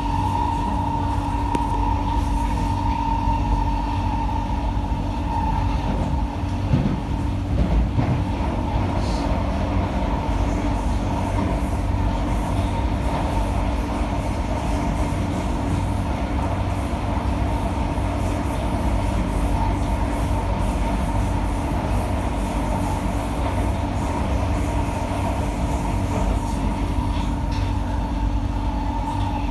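SMRT C151A metro train heard from inside the car while running at speed: steady wheel and track rumble with a constant tone, and a couple of knocks about seven and eight seconds in.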